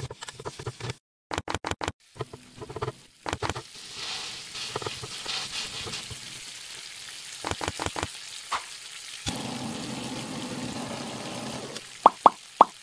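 Food sizzling on an oiled electric multi-well griddle as burger buns and beef patties fry, with a run of sharp clicks and taps of utensils against the pan in the first couple of seconds. Near the end a squeeze bottle of mustard squirts three short times.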